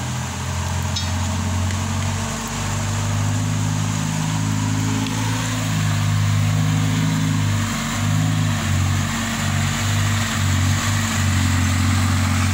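A vehicle engine running steadily, its pitch shifting with the throttle, with several brief dips in the engine note in the second half.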